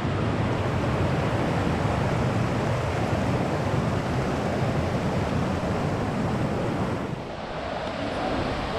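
Steady rush of falling water from a waterfall or cascade, easing slightly for a moment about seven seconds in.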